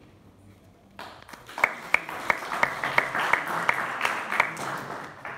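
Audience applauding, starting about a second in, with a few loud claps from someone close by standing out, and dying down near the end.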